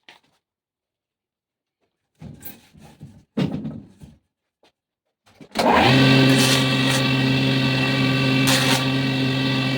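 A few knocks of wood and tool handling, then about halfway through a power saw's electric motor starts abruptly and runs steadily with a constant hum and whine.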